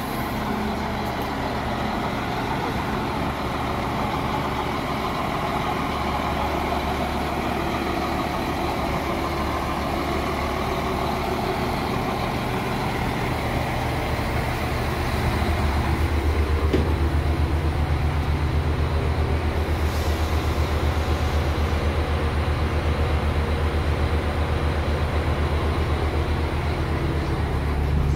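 RA2 diesel multiple unit standing with its diesel engine idling, a steady low drone. About halfway through, the drone grows louder.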